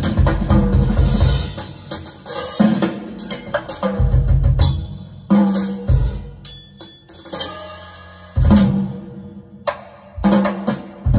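Recorded jazz from a piano trio played back over hi-fi loudspeakers, the drum kit to the fore: bass drum, snare and cymbal strokes in a broken, uneven pattern with short lulls between phrases.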